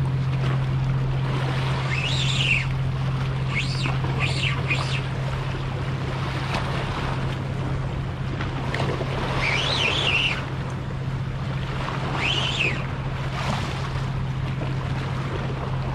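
Sea water washing against shoreline rocks with wind on the microphone and a steady low hum, broken by several short high whines that rise and fall in pitch.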